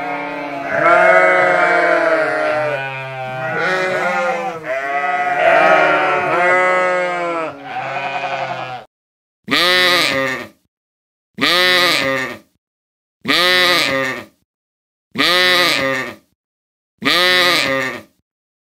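Sheep bleating: for about nine seconds many overlapping calls from a flock, then a single bleat repeated five times at even intervals about two seconds apart.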